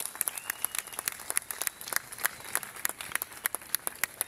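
Outdoor audience clapping: many scattered, uneven claps, with one short high whoop about half a second in.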